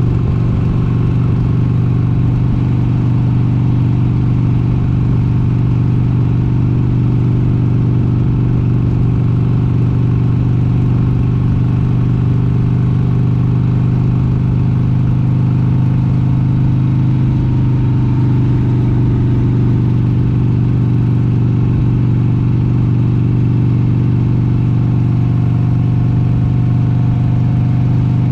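1996 Harley-Davidson XLH883 Sportster's air-cooled V-twin running steadily under way at cruising speed, heard from the rider's seat. The engine note shifts slightly a little past halfway.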